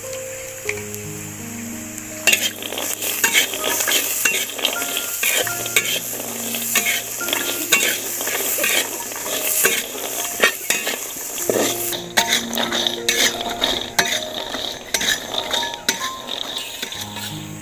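Food frying and sizzling in a pan, stirred with a utensil that clicks and clinks against it. The sizzle starts about two seconds in. Background music plays underneath.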